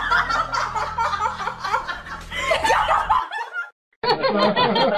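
People laughing and snickering over a steady low hum. It cuts off abruptly about three seconds in, and after a short silence more laughing and voices start.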